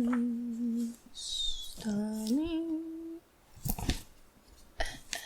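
A woman humming two held notes, the second sliding upward in pitch, with a brief rustle between them and a few light taps near the end.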